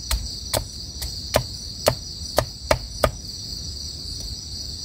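Machete blade chopping into a thin wooden stick on a wooden block: about seven sharp chops in the first three seconds, then they stop. A steady, high chorus of crickets runs underneath.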